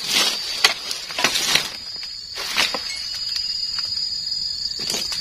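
Blows of a dodos chisel blade cutting through oil palm frond bases: a cluster of sharp chops in the first three seconds and another near the end, with a cut frond falling through the leaves at the start. A steady high insect drone runs underneath.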